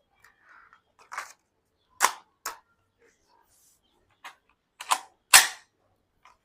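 Panther Arms DPMS CO2 BB air rifle making a series of sharp mechanical clicks and snaps at uneven intervals, the loudest about five and a half seconds in.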